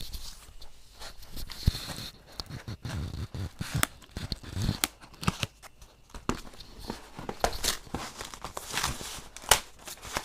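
Packaging being torn and handled as a box is opened: irregular crinkling and tearing with scattered sharp clicks and rustles.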